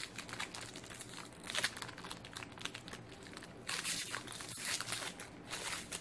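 Candy bar wrapper crinkling as it is unwrapped by hand, in many small crackles, densest and loudest for about two seconds from a little before the four-second mark.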